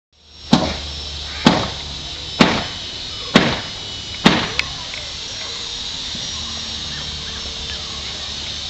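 Five heavy blows of a hand tool, evenly spaced about a second apart, each ringing briefly, stopping about four and a half seconds in.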